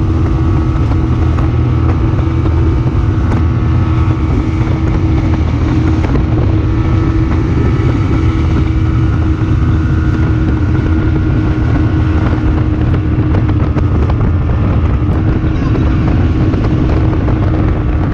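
Outboard motor of a bass boat running steadily at speed, a continuous engine drone over a heavy low rumble, with wind buffeting the microphone.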